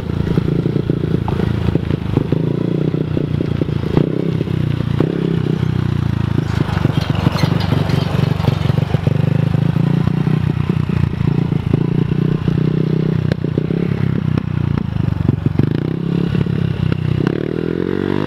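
A 110cc mini dirt bike's small engine running steadily close by, with a constant rattle of short clicks and scraping over it.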